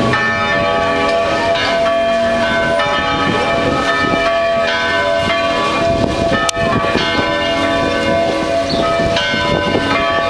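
The carillon of Blumenau Cathedral playing a tune: tuned bells are struck one after another at different pitches, and their notes ring on and overlap.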